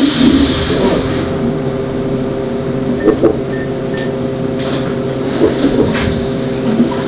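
Inside a New Flyer E40LFR electric trolleybus: a steady electrical hum made of several held tones from its onboard equipment, with a few light knocks and rattles.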